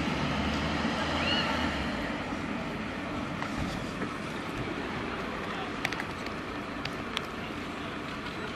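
Steady rushing noise of a burning car and a fire engine running. A low hum stops about two seconds in, and a few sharp pops or cracks come near the end.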